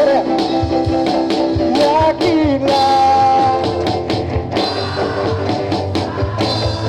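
Live rock band playing a song, with singing over drums and other instruments.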